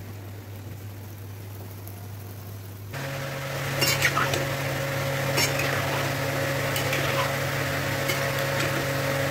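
Palm-fruit fritters sizzling as they deep-fry in mustard oil, over a steady hum. About three seconds in, the sizzle turns suddenly louder, and a metal spoon clinks against the pan several times as the fritters are turned.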